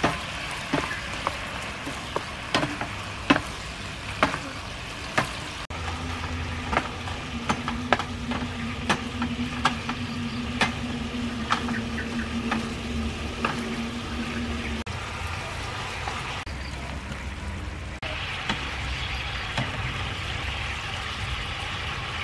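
Chicken pieces sizzling in a nonstick frying pan while being stir-fried with a wooden spatula, with frequent sharp knocks and scrapes of the spatula against the pan.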